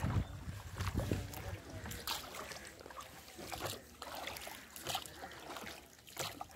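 Water sloshing and splashing around a wooden rowboat under oars as it comes alongside a jetty, with scattered light knocks and splashes.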